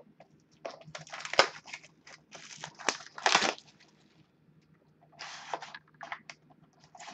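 Plastic shrink wrap being torn off a trading-card hobby box and crumpled: a quick run of crinkling and tearing crackles, then another brief burst about five seconds in, with light taps of handling the cardboard box.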